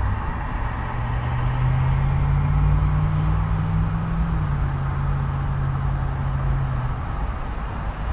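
Steady traffic on a busy urban road, a continuous rumble of tyres and engines. One vehicle's low engine hum stands out from about a second in to near the end, dropping slightly in pitch about halfway through.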